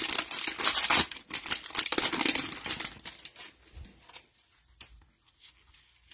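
Plastic wrapper of a trading-card cello pack being torn open and crinkled by hand. The crinkling dies away after about three seconds as the cards are pulled out, leaving a few faint ticks of cards being handled.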